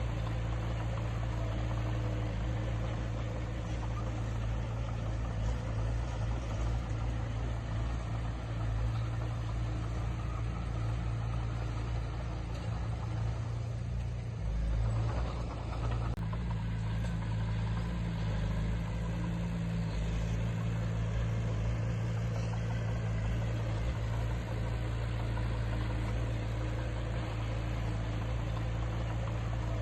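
Diesel engine of heavy earthmoving equipment running steadily, with a brief change in engine note about halfway through.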